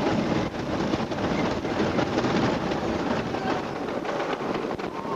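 Wooden roller coaster train running at speed along its track: a steady rattling rumble from the wheels and cars, with many sharp clacks.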